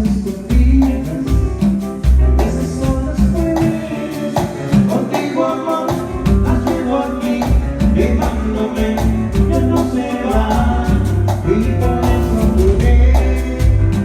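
Latin dance music with singing, played loud over a large mobile sound system during a sound check, with heavy bass that drops out briefly about five seconds in.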